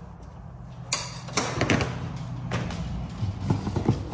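Rustling, then plastic clicks, knocks and scrapes as the black screw cap on a white plastic tank is gripped and unscrewed. Under it runs a steady low hum from a shop heater.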